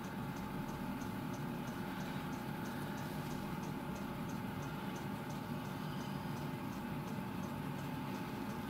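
Steady workshop room tone: a low hum with a faint steady tone and a faint high tick about three times a second.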